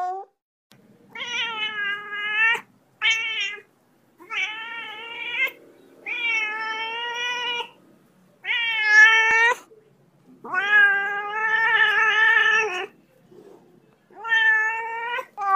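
A cat meowing over and over: about eight drawn-out meows, some short and some held for two seconds or more, a few wavering in pitch, with brief pauses between them.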